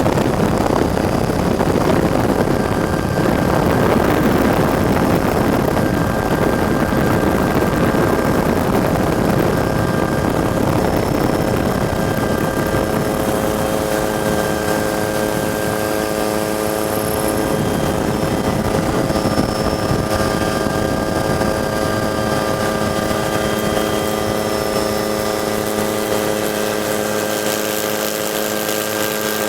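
Helicopter's turbine and rotors running steadily, heard from on board: a loud rush with several steady whining tones, which stand out more in the second half as the rush eases.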